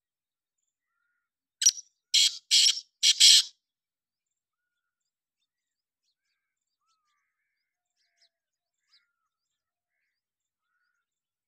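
Black francolin's call: one short note, then four scratchy notes in quick succession, lasting about two seconds in all.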